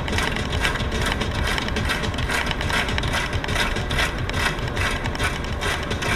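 Car driving, heard inside the cabin: steady low tyre and engine rumble, with a quick regular ticking about three times a second over it.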